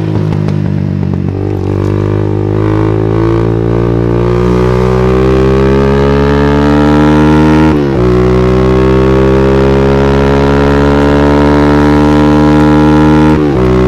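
TVS Wego scooter's carbureted single-cylinder engine, breathing through an Akrapovic slip-on exhaust and cone air filter and running a rich mixture, held at high revs with its pitch slowly climbing. The note dips briefly about eight seconds in and again near the end, then picks back up.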